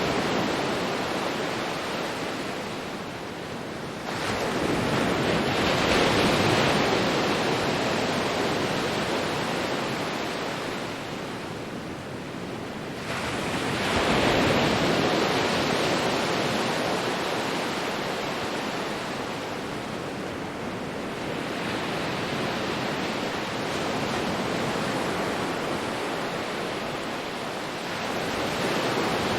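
Ocean waves breaking and washing in and out, a steady rushing that swells about every eight seconds, four times. The swells at about four and thirteen seconds in are the loudest.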